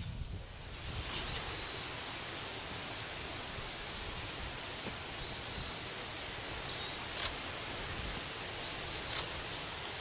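Rattlesnake rattling its tail: a steady high buzz that starts about a second in, drops back for a moment past the middle and picks up again near the end. Faint bird chirps sound now and then.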